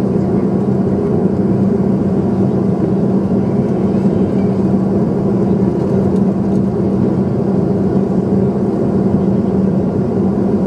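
Steady cabin noise of an airliner in flight: engine and airflow noise heard from inside the cabin, with a steady low hum running through it.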